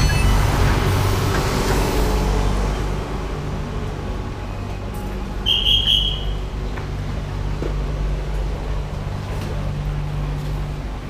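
Steady low hum and rumble of an underground airport rail-link platform, with a train standing at the platform doors. A single short, high electronic beep sounds about halfway through.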